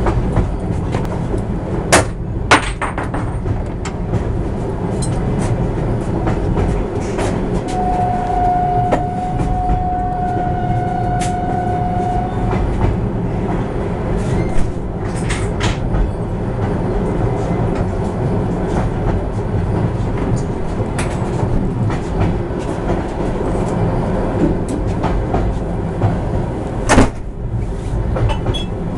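Passenger train pulling into a station, heard from inside a carriage: a steady rumble of wheels on rail with occasional sharp clacks over rail joints. A steady high tone sounds for about five seconds, starting about eight seconds in.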